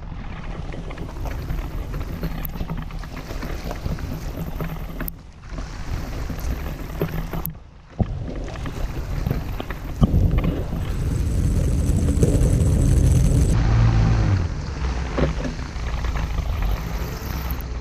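Mercury outboard motor running with a steady low hum, growing louder about ten seconds in as the boat gets under way, then settling. The recording comes through a faulty microphone and drops out briefly twice.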